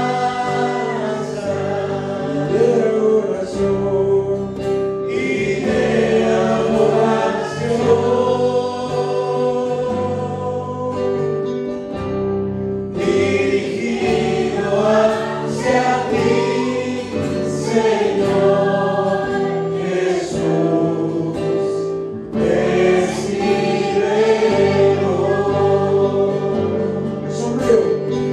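Choir singing a Spanish-language gospel worship song over held accompanying tones, the voices breaking off briefly about twelve seconds in.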